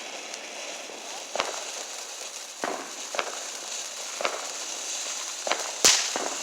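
Fireworks going off nearby: scattered sharp bangs, about six, at irregular intervals, the loudest near the end.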